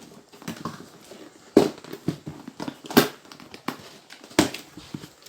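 A ceiling fan's cardboard box and packing being worked open by hand: rustling and crinkling, with a run of sharp knocks and clicks, the three loudest about a second and a half apart.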